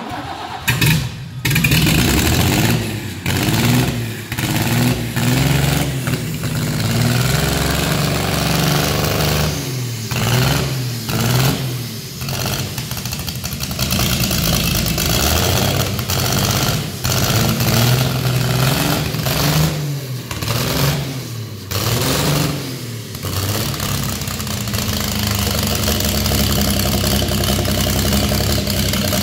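Jonga's Nissan engine, running bare out of the vehicle: it fires up about a second in and is revved up and down by hand at the carburettor again and again, then holds a steadier, faster run near the end.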